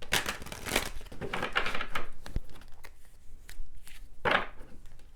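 Tarot cards being shuffled and handled, a papery rustling and riffling in irregular bursts.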